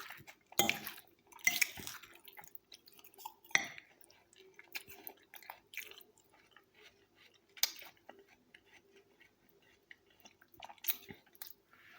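A person chewing a mouthful of fresh salad of apple, tomato, beans and sliced cheese in yogurt: irregular wet chewing sounds with a few sharper clicks.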